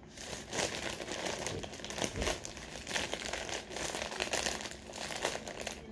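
Green plastic poly mailer bag crinkling and rustling continuously, with many small crackles, as hands pull and work at its sealed top to open it.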